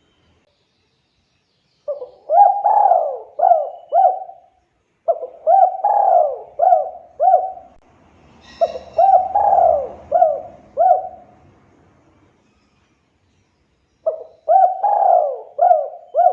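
Spotted dove (tekukur) cooing: four phrases of several short, rolling coo notes each, with pauses of one to two seconds between them.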